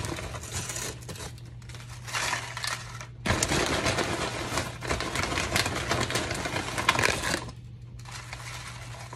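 A plastic tortilla-chip bag crinkling while hands pull out tortilla chips, which crackle against each other. The handling comes in stretches with short pauses.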